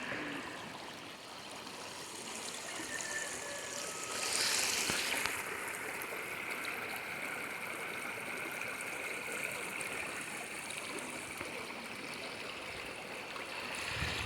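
Rushing water of a stream swollen by overnight rain, flowing steadily, louder and brighter for a moment about four seconds in.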